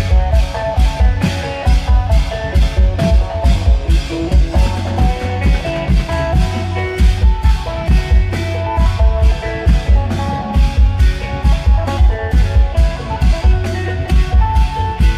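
Isan klong yao long-drum band music: deep drum beats in a steady, driving rhythm, about three a second, under a plucked-string melody.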